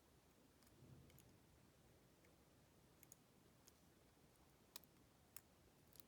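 Faint, scattered light clicks of a lock pick working the pin stacks of a Master Lock laminated brass padlock under tension, the sharpest few coming in the second half. A soft low handling rustle about a second in.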